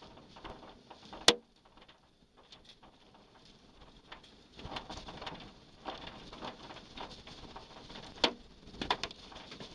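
Sharp knocks of wind-blown debris striking a car as a tornado closes in. One very loud hit comes about a second in and two more near the end, with lighter taps and knocks between them.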